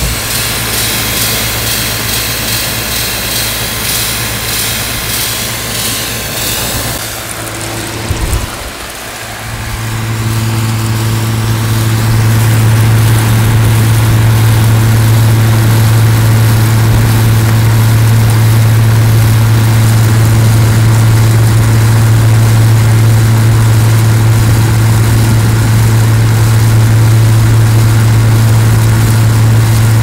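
5000 BTU window air conditioner running, heard up close at its condenser side: a rush of air from the condenser fan, joined about ten seconds in by a loud steady low hum that holds to the end.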